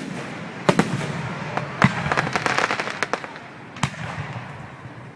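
Aerial fireworks exploding overhead: about five sharp bangs, with a burst of rapid crackling about two seconds in.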